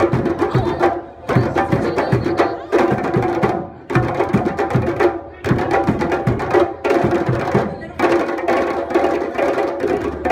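A group of djembe hand drums played together in a fast, dense rhythm, dropping out briefly a few times between phrases.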